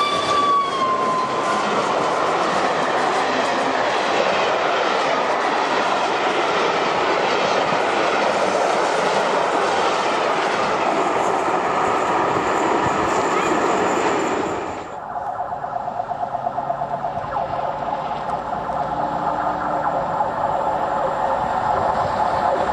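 Peppercorn A1 Pacific steam locomotive 'Tornado' and its express passing close at speed: the tail of a whistle dropping in pitch as it goes by, then the carriages rolling past with steady wheel and rail noise. About fifteen seconds in it cuts off abruptly to a second, more distant steam locomotive approaching, its sound pulsing rhythmically.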